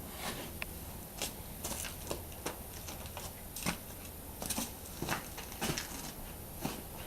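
Irregular light clicks, taps and rustles, about two a second, from hands handling an oil jug and working around the engine's oil filler during an oil fill.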